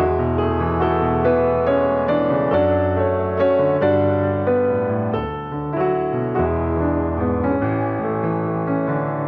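Piano music: a repeating pattern of struck notes over held bass notes that change every second or two.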